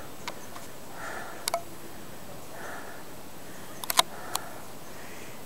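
Sharp clicks from handling a handheld video camera, the loudest about four seconds in, between a few soft breaths of a hiker winded from a steep climb.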